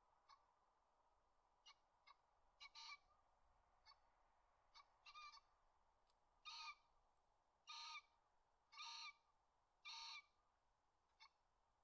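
Dry reed stems and debris crackling and rustling under a foraging raccoon dog. Scattered single ticks are followed by four louder half-second crunches about a second apart in the second half.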